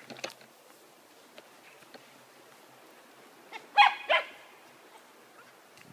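A dog giving two short, high barks about a third of a second apart, a little under four seconds in, with faint handling clicks near the start.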